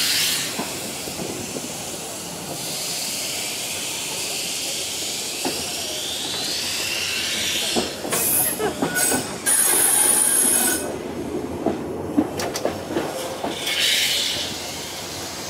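Vintage electric tram running on steel rails, wheels rumbling and clicking over the track with a rising whine as it picks up speed. The wheels squeal high on the curves, loudest about halfway through and briefly again near the end.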